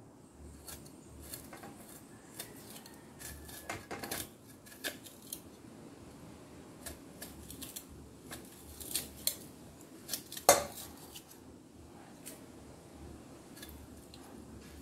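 Kitchen knife being sharpened, its blade drawn against metal in irregular short scraping strokes, with a louder metallic clank about ten and a half seconds in.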